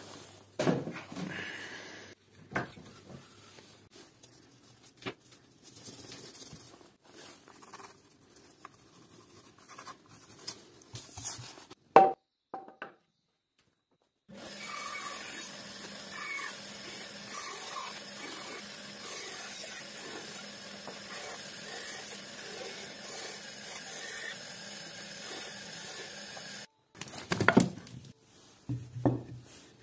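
Wood being handled and knocked about, with one sharp knock about twelve seconds in. After a short gap an electric band saw runs steadily for about twelve seconds, cutting a plank of wood, then stops and the sawn block is knocked and handled again.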